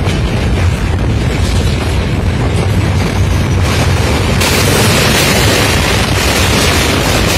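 Loud, continuous rumble of train wheels on a steel truss railway bridge, heard from a moving train. About four seconds in, an oncoming diesel locomotive and its coaches pass close alongside on the other track, adding a harsher rushing hiss on top of the rumble.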